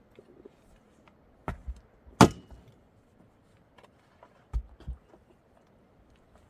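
Wood being struck in building work: several sharp knocks, with a pair about a second and a half in and the loudest single strike just after two seconds, followed by a short ringing tone. Two more knocks come about four and a half and five seconds in.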